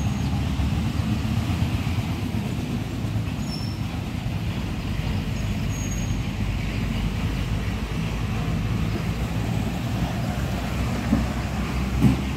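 A motor running steadily with a low hum throughout. Two short knocks sound near the end.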